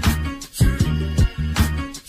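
Funk-style instrumental music with a beat: a sustained bass line under regular kick and snare drum hits.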